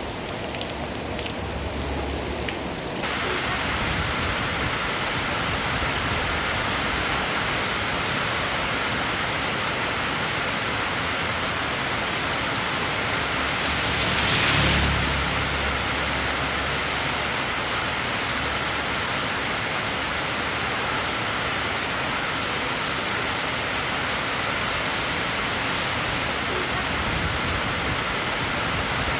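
Steady rain hiss with no distinct pattern. The first few seconds have individual drop ticks, then it settles into a smooth, even hiss. About halfway through there is a brief louder swell with a low rumble.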